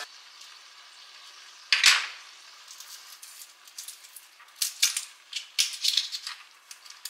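Dry papery shallot skins crackling and rustling as they are peeled off by hand, in short irregular bursts, with one louder burst about two seconds in.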